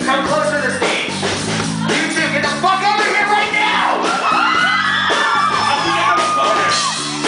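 Live rock band playing, with a yelled, shouted lead vocal over the guitars and bass; from about four seconds in a long, high vocal yell slides up and down.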